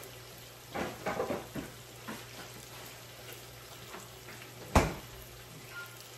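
Food frying in a skillet, a steady sizzle, with a few light clinks of a utensil about a second in and one sharp knock about five seconds in, the loudest sound.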